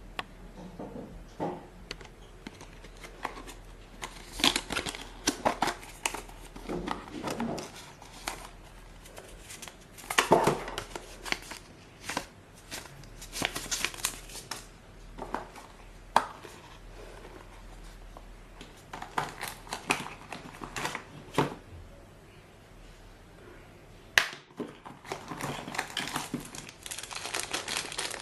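Packaging being handled and opened by hand: irregular crinkling and rustling of plastic and cardboard with scattered clicks and taps. A sharp click comes about 24 seconds in, and the crinkling grows denser near the end.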